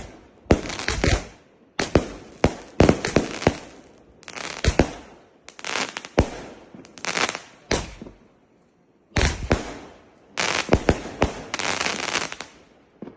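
Fireworks going off in rapid volleys of sharp bangs and crackles, with short pauses between the volleys.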